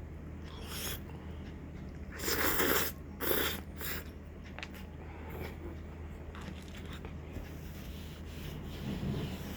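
A person eating: two short, loud, noisy mouth sounds about two and three seconds in, then a few faint clicks, over a steady low hum.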